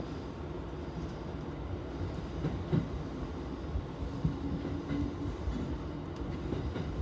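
Electric commuter train running along the track: a steady low rumble with a few sharp clicks of wheels passing over rail joints, and a short steady hum about four seconds in.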